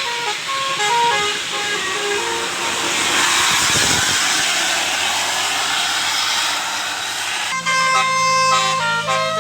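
Bus 'telolet' musical air horn (Basuri multi-tone type) playing a quick stepped melody over a loud steady hiss. About three quarters of the way through, the sound changes abruptly to another horn melody, clearer and fuller, with no hiss behind it.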